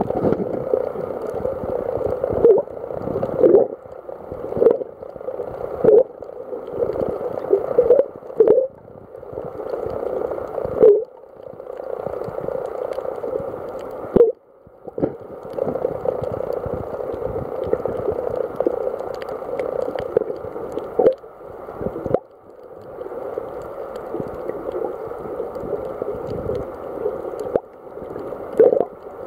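Muffled underwater sound of sea water sloshing and gurgling against a camera held just below the surface, with a sharp pop or knock every second or two and a few brief breaks.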